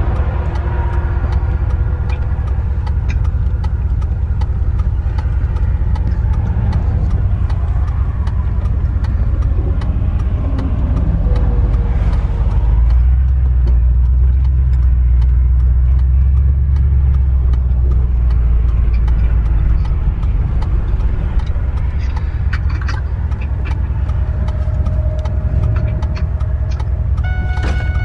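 Low, steady rumble of a Ford F-150 pickup's running engine and road noise, heard inside the cab while driving slowly. It swells louder for several seconds midway.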